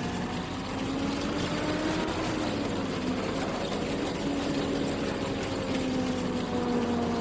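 Combine harvester running steadily while harvesting wheat, its engine hum rising slightly in pitch about two seconds in, dipping, then holding steady over a broad rush of machinery noise.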